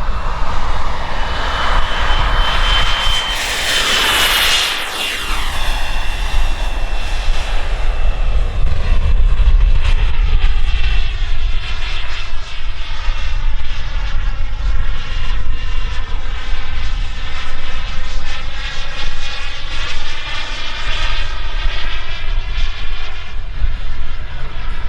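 KingTech K86 turbine of a PilotRC 1/8-scale F-16 model jet whining in flight. It makes a loud pass about four seconds in, its pitch dropping as it goes by, and then the sound keeps sweeping up and down as the jet flies around.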